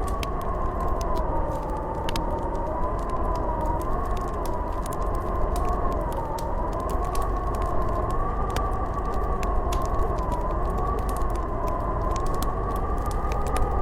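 Blizzard wind howling, a whistling tone that slowly wavers up and down over a steady low rumble, with scattered sharp crackles of a wood fire.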